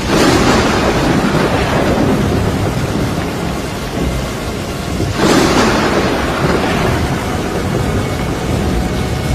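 Two claps of thunder, one right at the start and one about five seconds in, each rumbling away over a couple of seconds, over steady heavy rain.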